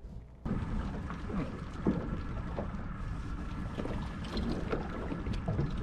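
Outdoor ambience aboard a small fishing boat on the open ocean: wind buffeting the microphone over water noise. It starts abruptly about half a second in and then holds steady.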